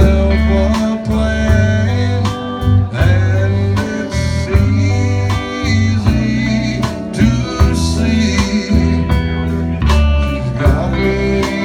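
Blues band playing live: pitched instrument lines over a strong bass, with a steady beat.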